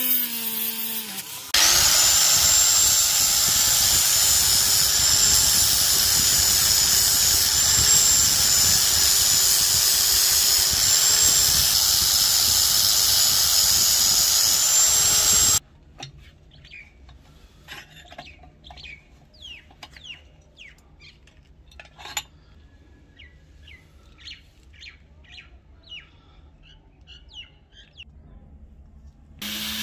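An angle grinder grinding steel held in a vise, a loud steady whine with a grinding rasp, ending abruptly about halfway through. Before it, a brief whine of a rotary tool drilling; after it, only faint scattered scrapes and clicks of hand work on the small blade.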